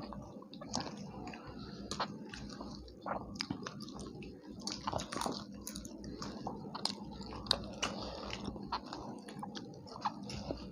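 People chewing and biting into tandoori chicken with naan, with many short, irregular mouth clicks and wet smacks.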